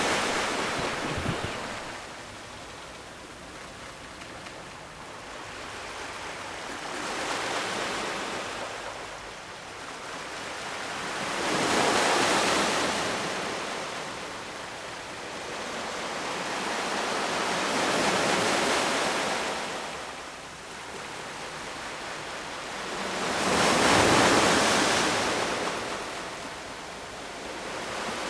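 Ocean waves breaking and washing on the shore, the surf swelling and falling back about every six seconds, with the strongest waves about twelve seconds in and near the end.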